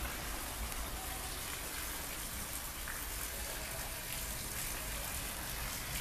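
Water from a garden hose spraying and splashing onto a car windshield, a steady hiss of running water on glass.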